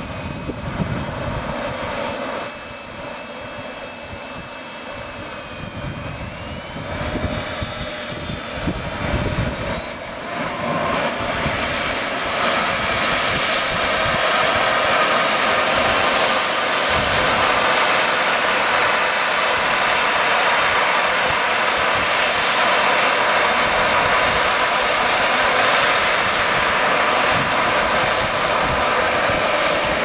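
Model jet's miniature turbine engine whining on the ground. It holds a steady pitch, climbs steeply as it spools up from about a third of the way in, holds a high steady whine, then begins winding down at the very end. Wind buffets the microphone throughout.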